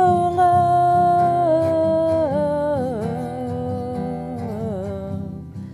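A woman sings one long held note, the end of the word "love". It slides down in pitch in a few steps and fades out near the end, over steady strummed acoustic guitar chords.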